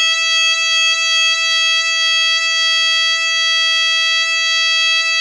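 An ARP Pro Soloist analog synthesizer holds one high, bright note steadily, rich in overtones, with no change in pitch or level.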